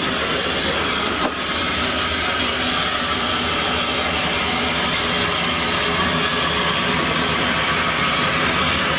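Steady hissing and rumbling in the cab of steam locomotive 25-026, with a single click a little over a second in.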